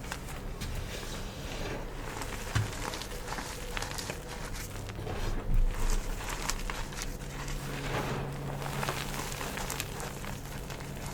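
Gym chalk being crushed, crumbling and crunching in a dense run of small crackles, with a louder crunch about halfway through.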